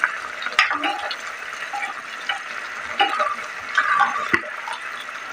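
A spatula gently stirring fried tilapia and vegetables through a simmering sauce in a nonstick pan: a steady wet bubbling hiss with a few soft knocks of the spatula against the pan.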